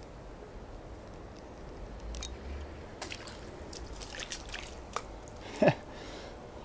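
A hooked fish splashing and thrashing at the surface of a small river while it is played on a light spinning rod, as a series of short splashes and clicks. About two-thirds of the way through there is a single short sound sliding down in pitch, the loudest thing heard.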